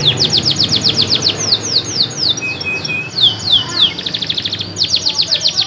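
Domestic canary singing loudly: rapid runs of repeated downward-sweeping whistled notes, about eight a second, broken by a few short steady notes and, about four seconds in, a much faster trill before the sweeping notes return.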